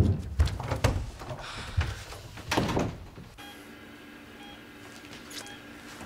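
A few dull thumps and knocks, then a steady low hum with a short electronic beep about once a second from a hospital bedside patient monitor.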